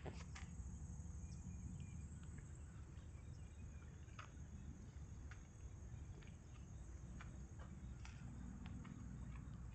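Quiet outdoor background: a low steady rumble with a few faint scattered clicks.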